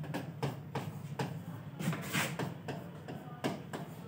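Stylus tapping and rubbing on the glass of an interactive whiteboard screen as figures are written: a quick run of light taps, about three or four a second, with a brief scratchy stroke a little after two seconds, over a steady low hum.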